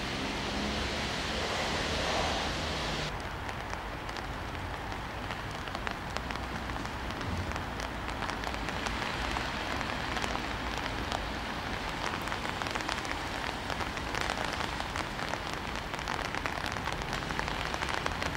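Steady rain falling, with many small drops pattering on surfaces. A brighter hiss over the first three seconds cuts off suddenly.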